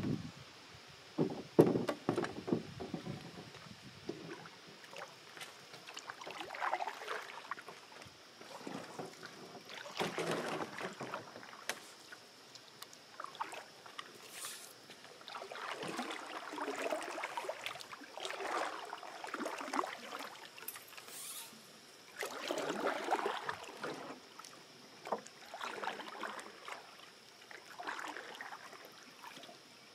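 Canoe paddling: a paddle blade pulls through the water every two to three seconds, each stroke a soft swish and drip. A few sharp knocks come about a second or two in.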